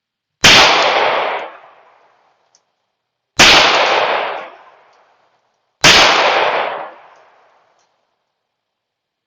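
Three shots from a Tisas 1911 .45 ACP pistol, fired a few seconds apart, each followed by about a second and a half of echo dying away.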